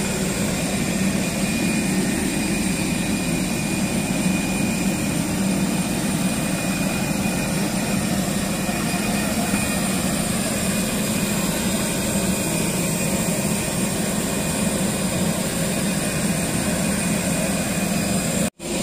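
Steady whine and rumble of a parked Super Air Jet airliner on the apron, unchanging throughout, cutting out abruptly near the end.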